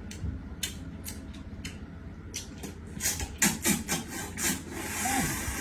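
Eating sounds: repeated short scrapes and clicks of cutlery on a plate of rice, coming faster from about halfway through.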